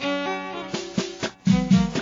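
Moroccan Middle Atlas Amazigh folk song starting abruptly: plucked-string melody over a rhythmic beat, with two deep thuds about a second and a half in.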